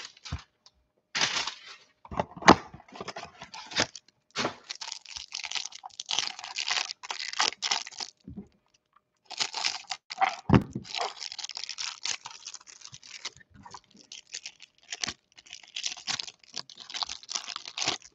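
Clear plastic wrapper on a stack of football trading cards crinkling and tearing as it is pulled open by hand, in irregular bursts with a short pause about halfway through. A couple of sharp knocks stand out, one about ten seconds in.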